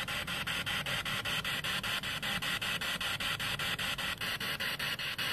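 Spirit box sweeping through radio frequencies: a steady hiss of static chopped into rapid, regular pulses, about eight a second.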